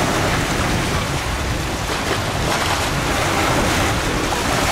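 Steady wind buffeting the microphone over a continuous rush of waves.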